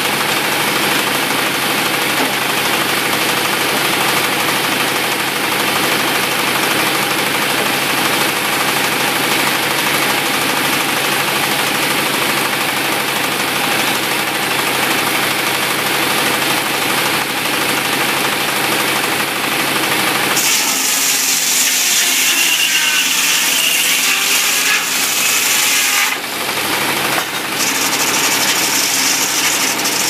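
Sawmill machinery running steadily with an engine sound. About two-thirds of the way through, the sound changes for around six seconds to a higher hiss with less low rumble, then returns.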